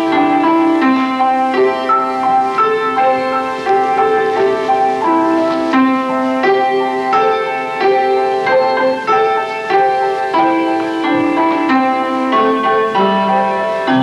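Instrumental music: a slow melody of held notes that changes pitch every half second to a second, over a few lower sustained notes.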